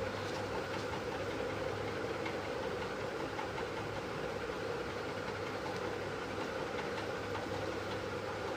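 Steady low mechanical hum of a running motor, with a few faint small clicks of paper being handled.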